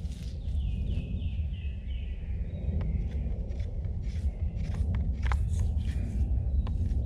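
Knife blade shaving curls off a green wood stick in short, irregular strokes starting about three seconds in, over a steady low rumble. Near the start a songbird sings a falling run of notes.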